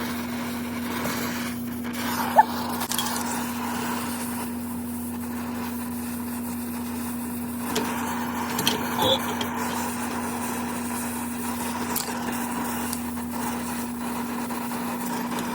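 Steady machine hum on one low pitch, with a few light clicks and knocks from hand work.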